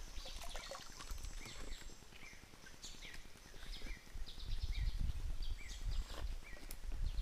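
Water in a shallow stream sloshing around hands handling a plastic water pipe, under short bird chirps repeated every half second or so. A low rumble swells in the second half.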